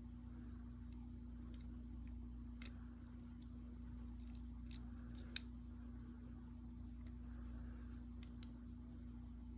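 Faint, scattered metal clicks of a half-diamond lock pick working the spring-loaded sliders of an OnGuard slider lock, about half a dozen over the stretch, over a steady low hum.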